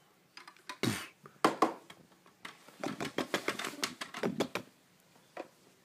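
Hard plastic toys being handled and knocked together: a quick run of small clicks and taps, thickest in the middle, with a few single knocks before it.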